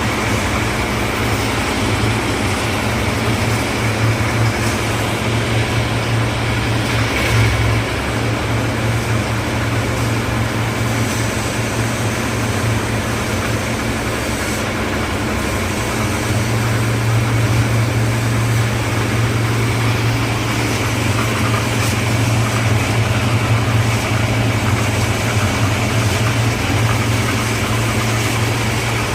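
Concrete mixer's engine running steadily: a constant low hum under a noisy mechanical rattle, getting slightly louder a little past halfway.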